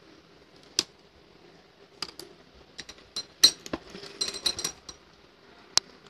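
Scattered light clicks and clinks, thickest in the middle with the sharpest near the halfway point, some with a short glassy ring: bangles knocking together and against the sewing machine as hands move fabric under it.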